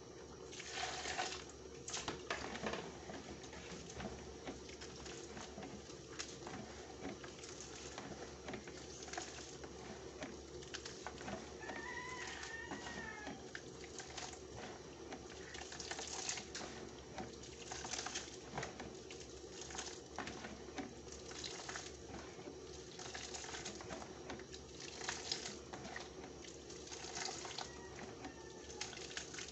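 Hands kneading and squeezing freshly grated coconut in a plastic basin to press out coconut milk: irregular wet squelches and splatters over a steady low hum.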